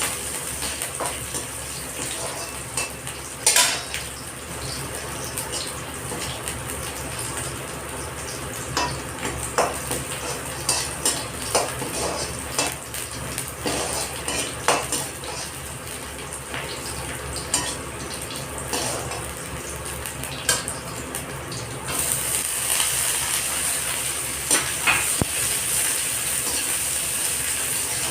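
Rice frying in a pan with a steady sizzle while a metal spoon stirs it, with repeated clinks and scrapes against the pan. The sizzle gets louder late on.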